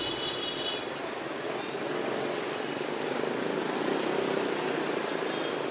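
Steady hum of motorbike street traffic.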